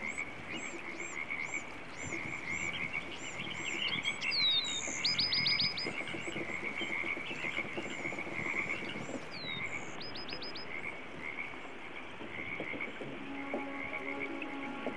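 A steady chorus of frogs calling from the lake, a continuous pulsing trill, with high chirps repeating every few seconds over it.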